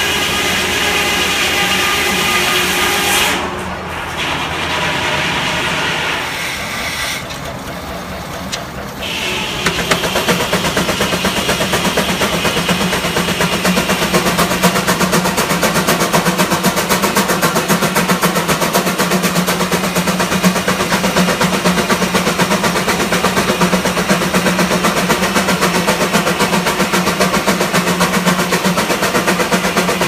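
Steam-powered sawmill running with a steady hum and ringing. From about ten seconds in, a 13 HP Russell steam traction engine runs while driving the mill by its belt, its exhaust chuffing in a rapid, even beat.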